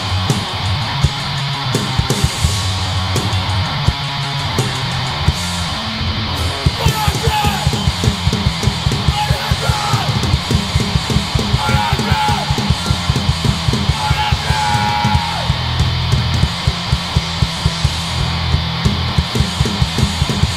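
Hardcore punk band playing live: distorted electric guitar, bass guitar and drum kit. The drumming picks up to a fast, dense beat about six seconds in.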